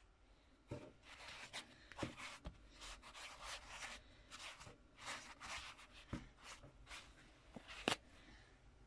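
Stiff brush dabbing and scrubbing glue-soaked toilet paper to raise a wave texture: a run of soft, irregular scratchy dabs, several a second, with a few sharper knocks, the loudest just before the end.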